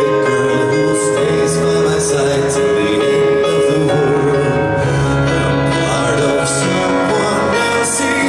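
Live piano ballad: piano accompaniment with a man singing into a microphone.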